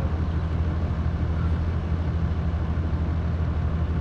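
An engine idling: a steady, even low drone.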